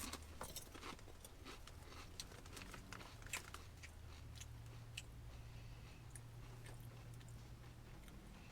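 Faint crunching of a potato chip being bitten and chewed, a sharp bite right at the start and crisp crackles thickest in the first few seconds, then thinning out.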